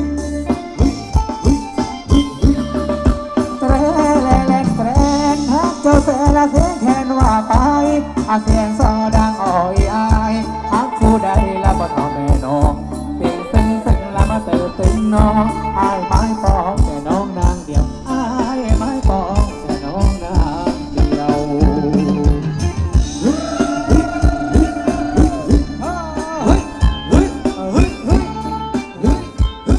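Live Thai ramwong dance band music: drums keep a fast, steady dance beat under a melody line with bending notes.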